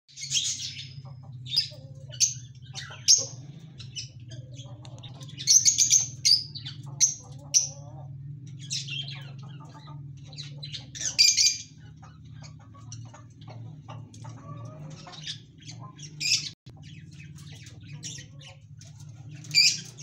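Small caged parrots, lovebirds and budgerigars, chirping and giving shrill squawks, many short sharp calls in quick succession with louder bursts every few seconds. A steady low hum runs underneath.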